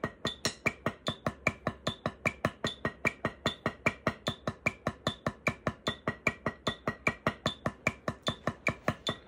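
Wooden drumsticks playing steady eighth notes on a practice pad at 150 beats per minute, about five even, sharp taps a second.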